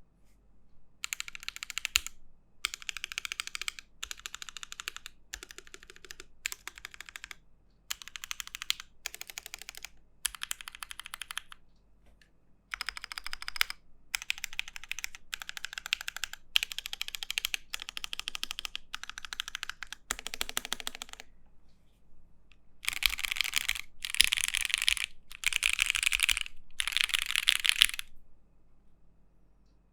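Typing on a top-mount aluminium custom mechanical keyboard with JWK Dogikon switches on an aluminium plate. The keystrokes come in bursts of a second or so with short pauses between them, louder in the last few bursts, and stop a couple of seconds before the end.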